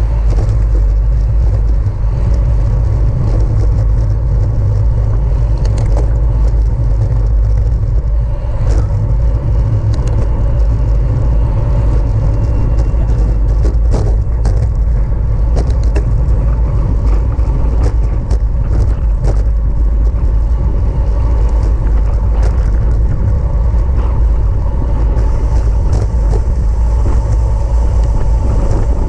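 Wind and road rumble on a racing bicycle at speed during a criterium: a loud, steady low rush with a faint steady hum and scattered clicks and ticks.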